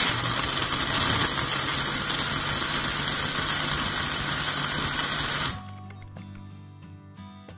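Countertop blender motor running at a steady speed, blending a smoothie, with a low hum under a loud whirring noise. It cuts off suddenly about five and a half seconds in, leaving quieter background music.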